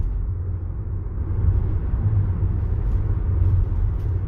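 Steady low road and tyre rumble inside the cab of a Ford E-Transit electric van driving at about 30 mph, with no engine sound.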